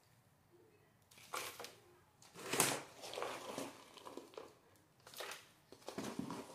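Potting soil being scooped and handled, heard as irregular crinkling and rustling that starts about a second in and is loudest around two and a half seconds in.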